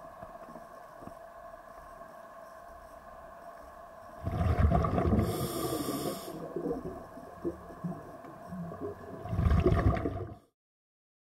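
Underwater camera audio: a steady hum in several tones, then from about four seconds in loud, irregular surges of water noise against the camera, cutting off suddenly near the end.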